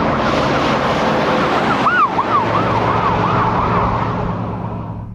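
Fast yelp siren on a truck speeding past, warbling up and down several times a second over loud tyre and road noise. About two seconds in, as the truck goes by, the siren peaks and its pitch drops: the Doppler effect. The siren then fades until the sound cuts off suddenly near the end.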